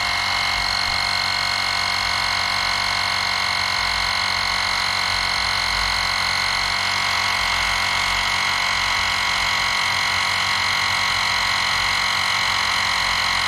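EAFC cordless rechargeable air compressor running steadily with a constant high whine, pumping up a low bicycle tire toward its 40 psi set point.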